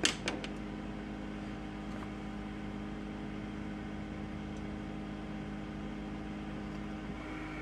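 Ninja countertop air fryer oven running on air broil: a steady electric hum from its fan and element with a faint airy hiss. A few sharp clicks right at the start as its door is pushed shut.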